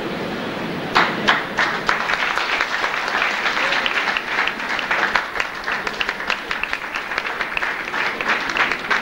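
Audience applauding, breaking out about a second in and going on as a dense patter of many hands clapping.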